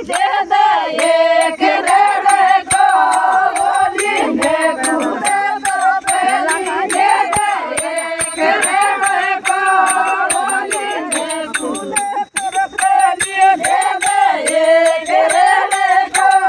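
Meenawati folk song (lamba geet): a sung melody over a steady, fast clicking percussion beat.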